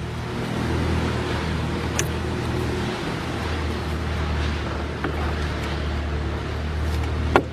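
Steady low machine hum of the shop, with two sharp metal clicks, about two seconds in and near the end, as a brake caliper is slid onto its bracket over the rotor.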